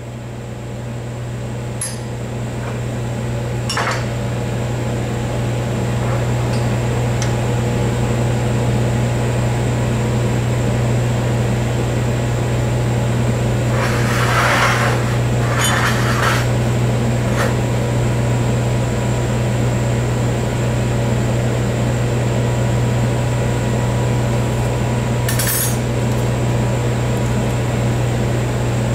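Aluminum parts clinking as they are set on an aluminum plate, with a longer scraping clatter about halfway through as a heavy aluminum block is put down and shifted, all over a steady low machine hum.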